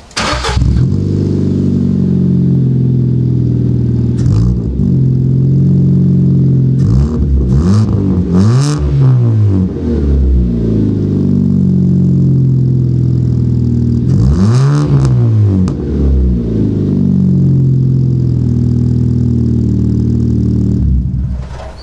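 A MK6 Ford Fiesta's four-cylinder engine idling through an aftermarket twin-tip exhaust, loud, and revved in short blips that rise and fall in pitch, the two biggest about eight and fourteen seconds in.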